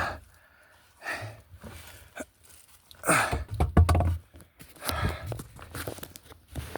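A man breathing hard and panting, several heavy breaths a second or two apart, some with a slight groan, mixed with rustling and knocks of his body moving through a cramped attic.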